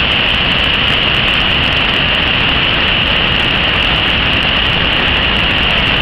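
Mountain waterfall cascading down a rocky chute: a loud, steady rush of white water.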